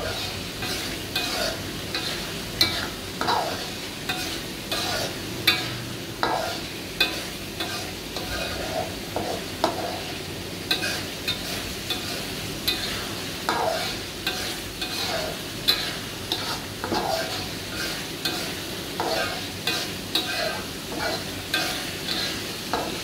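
Metal spoon scraping and stirring a thick chili paste in a steel wok, in repeated strokes a little faster than one a second, over the steady sizzle of the paste frying in oil. The sambal is being cooked down until it turns fragrant and reddish.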